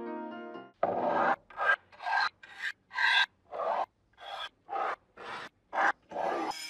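Rusty iron lock parts dragged and scraped across a tabletop: a series of about ten short, rough scrapes, roughly two a second.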